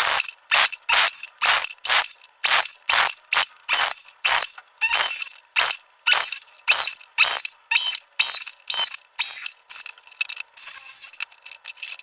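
A hand tool worked back and forth in quick even strokes, about two a second, each stroke a high squeaking scrape with a metallic ring.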